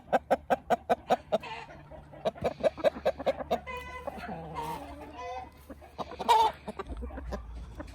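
Chickens clucking in a quick run of short calls for the first three seconds or so, then scattered calls and a louder call about six seconds in.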